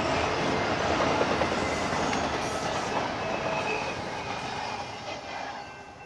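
Freight train rolling by: steel wheels clatter over the rail joints, with a faint wheel squeal briefly in the middle. The sound fades steadily over the second half.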